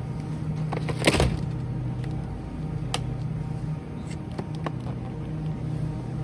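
A steady low hum, as of a motor or appliance, with a loud sharp clack about a second in and a lighter click near three seconds.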